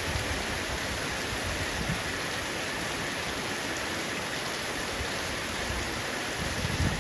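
Heavy rain falling steadily on a roof, an even hiss of water, with a low rumble swelling near the end.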